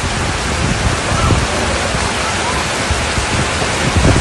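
Floodwater torrent rushing through a street, a loud, steady roar of churning water with rumbling lows.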